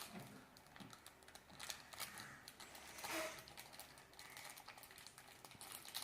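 Small plastic toy packaging handled and opened by hand: faint scattered clicks and crinkles, with a louder rustle about three seconds in.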